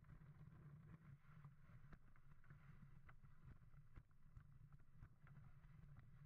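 Faint steady rumble of a dog sled running over thin, patchy snow, with scattered light ticks from the sled and its lines.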